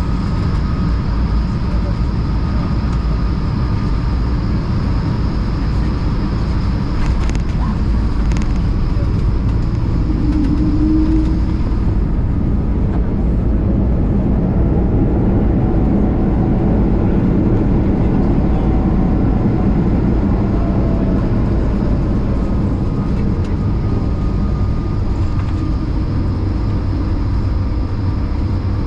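Cabin noise inside an Airbus A220 landing: a steady roar of Pratt & Whitney PW1500G geared turbofans and airflow, with a couple of short thuds about seven to eight seconds in as the wheels touch down. The engine noise then swells in a rising and falling whine as reverse thrust slows the rollout.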